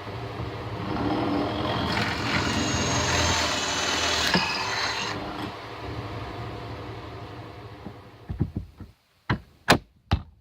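A motor vehicle engine running, fading away over the last few seconds, followed by a few sharp clicks or knocks near the end.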